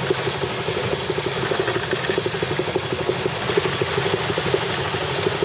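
Small yacht's outboard motor running flat out under heavy load, a steady rapid pulsing, as it drives the boat against a strong incoming tide through shallow water. Wind and water rush run underneath it.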